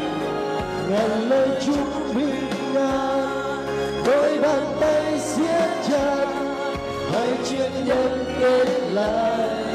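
A young woman and a young man singing a Vietnamese pop ballad as a duet into microphones, amplified over an instrumental accompaniment.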